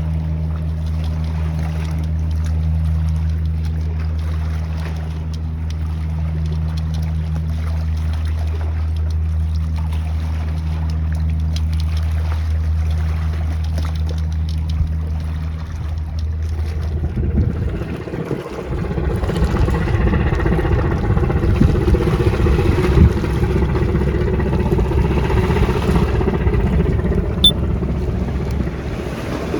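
A motorboat's engine running with a steady low drone. About halfway through, the drone gives way to a rougher rushing noise of wind and water.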